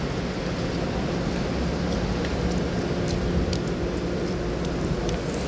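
Steady city background noise: an even wash with a faint low hum, and scattered small clicks.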